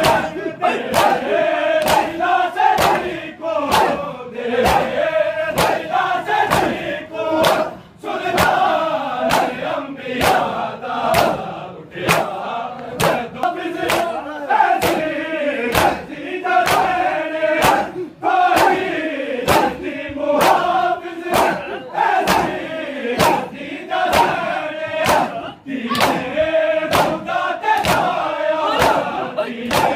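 Crowd of Shia mourners chanting a nauha in unison while beating their chests with open palms in Muharram matam, the slaps landing together in a steady beat under the chanting.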